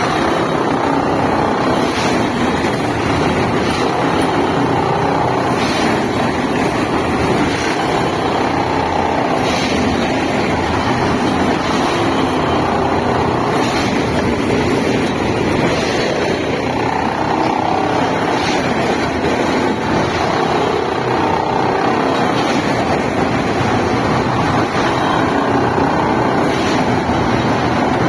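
Unimat track tamping machine working, its engine running steadily and loudly, with faint knocks now and then.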